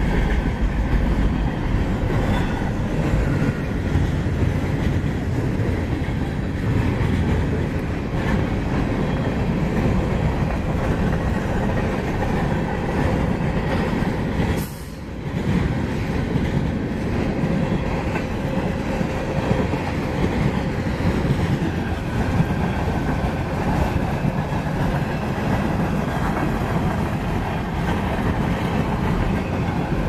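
Freight cars of a mixed manifest train rolling past at speed, a steady rumble of steel wheels on the rails as refrigerated boxcars, covered hoppers and then tank cars go by. The sound briefly dips about halfway through.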